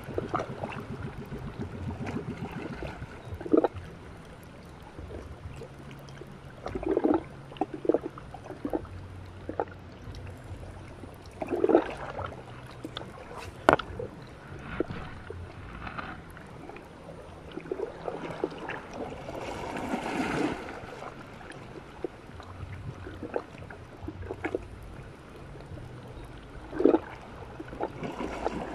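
Sea water lapping and sloshing among shore rocks: a steady wash broken by short splashes every few seconds.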